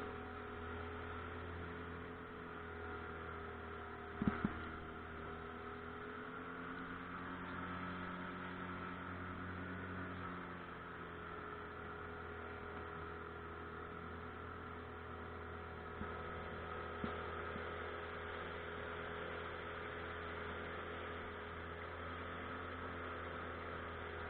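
Pontoon boat's motor running steadily under way: a low hum with a few steady tones over it. A brief knock about four seconds in.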